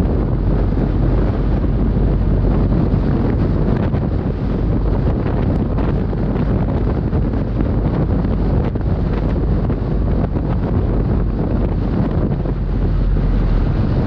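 Wind buffeting the microphone of a car-mounted GoPro Hero 5 while the car drives, a steady low rumble with road noise mixed in.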